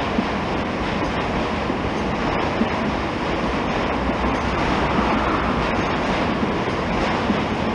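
Loaded freight flatcars rolling past close by: a steady rumble of wheels on rails, with a few sharp clicks scattered through it.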